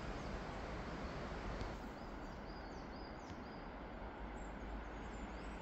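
Steady outdoor background of wind on the microphone, a low rumble under an even hiss, with a bird giving a few brief high-pitched chirps in the middle.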